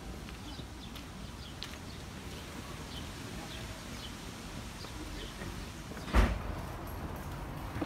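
Steady outdoor background noise with faint, short, high sounds scattered through it, and a single loud thump about six seconds in.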